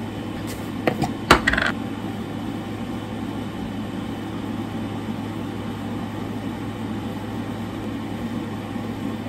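Small hard objects clicking and clinking a few times about a second in, over a steady low hum.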